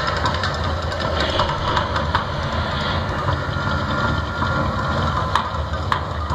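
Man-made volcano attraction erupting: a deep, steady rumble with scattered sharp crackles and pops.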